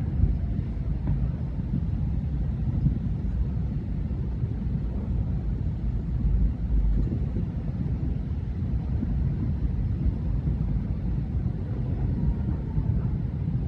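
Thousands of distant fireworks merging into an unending low rumble, like rolling thunder, with a few faint separate pops now and then.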